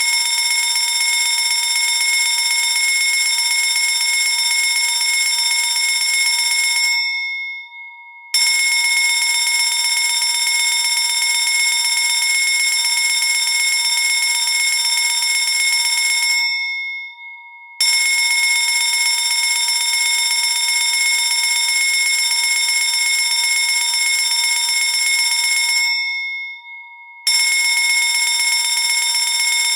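Fire alarm bell ringing loudly and continuously in stretches of about eight seconds, each broken by a pause of about a second in which the ring dies away.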